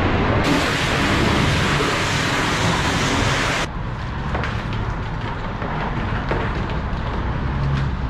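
Car wash spray wand hissing loudly, cutting off abruptly after about three and a half seconds. Then a foam brush scrubbing a tire, with faint scratchy strokes over the low hum of the wash bay.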